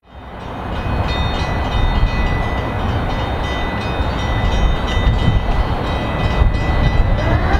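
A steady low rumble and hiss, fading in over the first second, with a faint steady high whine running through it. Near the end a siren starts winding up, rising in pitch.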